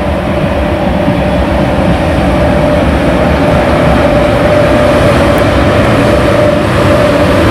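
Electric locomotive approaching along the track: a steady rumble of wheels on rail and running gear, with a held whine, growing steadily louder as it nears.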